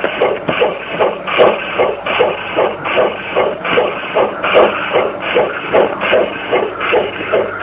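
G gauge model steam locomotive chuffing steadily as it runs, about two to three even chuffs a second.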